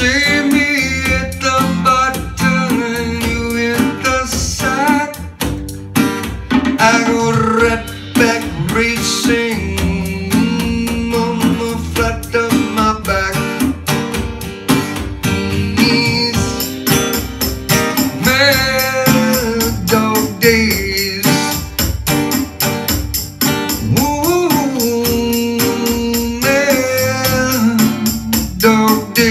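A man singing over steadily strummed acoustic guitar, a bluesy folk song. About halfway through, a steady high percussion rattle joins in.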